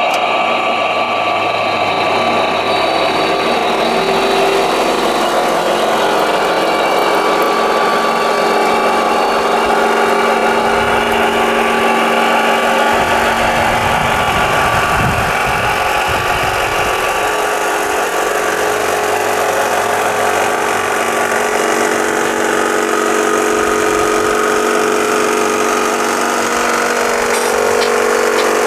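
Model vibrating screen (gravel shaker) running: its small motor and vibrator give a steady mechanical whine with a hum underneath, and a low rumble joins for a few seconds around the middle.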